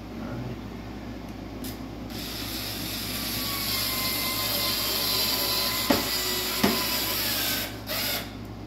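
Cordless screw gun driving a screw into a car's front splitter: the motor starts about two seconds in and runs steadily for about six seconds, with two sharp clicks near the end.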